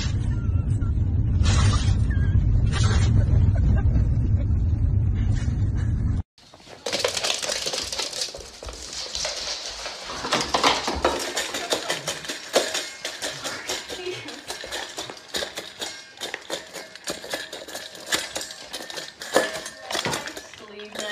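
Huskies in a moving car, one giving several short loud calls over the car's low rumble. After an abrupt cut, a dog eats from a steel food bowl, with many small metallic clinks and clicks.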